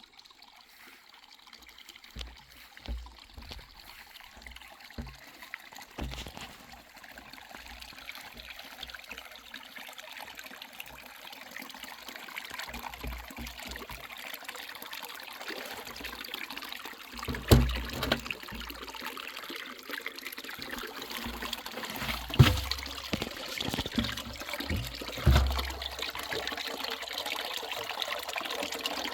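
Natural spring water trickling and pouring in a steady stream that grows gradually louder. Several low bumps break through, the loudest about two-thirds of the way in.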